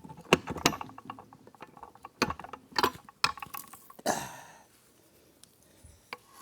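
Steel gears and shafts of an Aermacchi Big Bore's 5-speed transmission clinking and clanking as they are handled in the split engine case: a string of sharp metallic clicks with a longer ringing clank about four seconds in.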